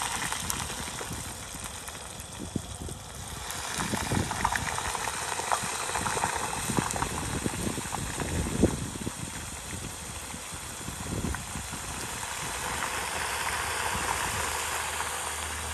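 Potato fries deep-frying in a saucepan of hot vegetable oil on a portable butane camp stove: the oil bubbles and sizzles steadily, with scattered crackles.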